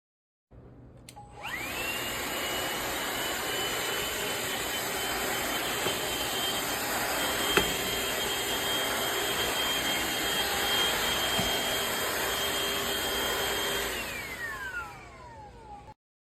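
Shark VacMop Pro cordless vacuum mop's suction motor switching on with a rising whine, running steadily, then winding down with a falling whine near the end. A single sharp click about halfway through.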